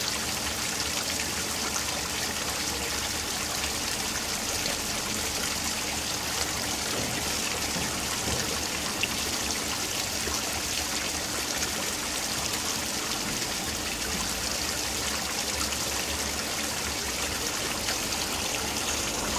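Water from a tiered stone fountain splashing steadily: thin jets and overflow from the upper basin falling into the pool below.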